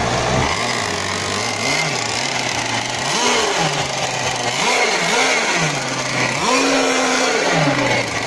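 Small two-stroke gas engine of an RC racing boat running out of the water, idling with its throttle blipped about five times, the revs rising and dropping back each time, the last burst held for about a second near the end.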